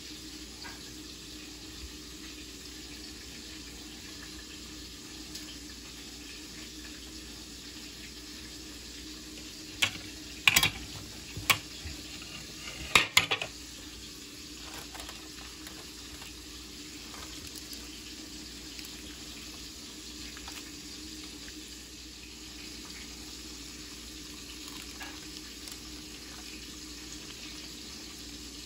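Aluminium foil crinkling in a short cluster of sharp crackles about ten to thirteen seconds in as a whole fish is handled on it, over a steady background hiss with a faint hum.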